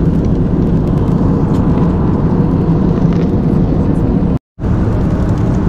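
Steady cabin noise of a jet airliner in flight: the even, low rumble of engines and rushing air heard from a window seat. It cuts out for a split second about four and a half seconds in.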